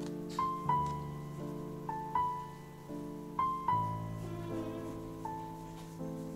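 Background piano music: a slow, gentle melody of single notes over sustained chords.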